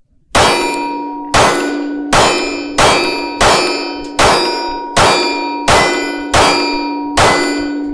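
Ten rapid 9mm pistol shots from a Glock 43X, fired at a steady pace of about one every 0.7 seconds. Each shot has a long ringing decay, and a steady ring carries on under the whole string.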